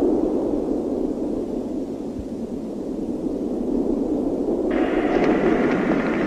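Steady low rumbling noise. About three-quarters of the way through, a brighter hiss with faint crackles joins it.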